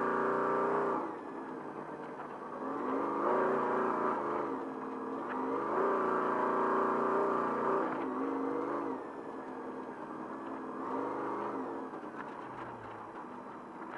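Off-road Trophy Truck engine under way, repeatedly pulling up in pitch and then easing off every few seconds as the throttle is worked.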